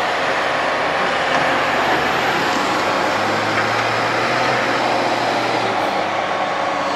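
Large diesel tractor engines running hard under load, a steady dense engine noise throughout. A low tone in the engine note changes about three seconds in, where the footage cuts from one tractor to another.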